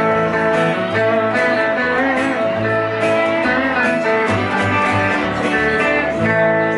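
Live country band playing: electric guitar lead over walking upright-bass notes and acoustic guitar.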